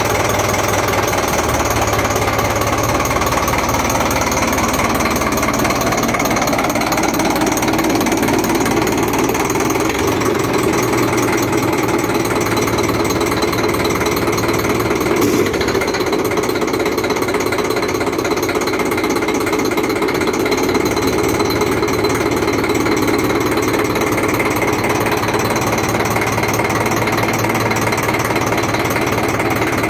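1960 Dutra D4K-A tractor's 5.5-litre four-cylinder diesel engine running with a loud, fast, steady clatter, rising in pitch after about six seconds and then holding steady.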